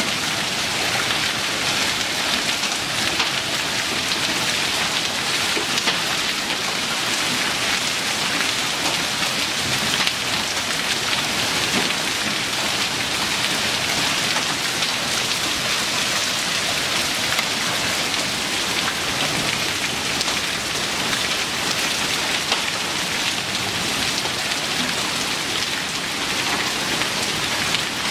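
Heavy rain mixed with hail pelting the street, lawn and house in a steady, dense hiss, with a few sharper hailstone ticks standing out.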